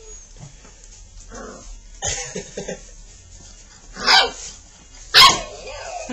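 Young Labrador puppies barking: three short, sharp barks about two, four and five seconds in, the last the loudest, with quieter puppy noises between.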